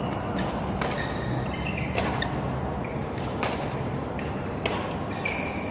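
Badminton rackets striking a cork-based feather shuttlecock during a rally: sharp pops about every second or so, with a few short squeaks of shoes on the court floor between hits.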